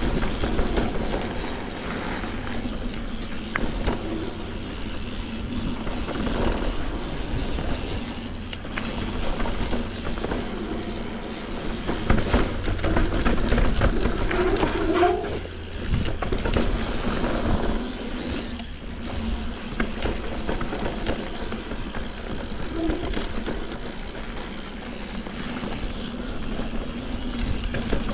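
Mountain bike descending a dirt trail: tyres rolling over the ground with a continuous rumble, and frequent knocks and rattles from the bike over bumps.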